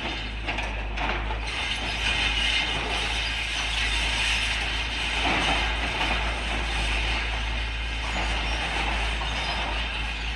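Hydraulic rock breaker (Epiroc/Atlas Copco) on a Volvo 210 excavator hammering steadily at rock, a rapid clatter over the excavator's running engine.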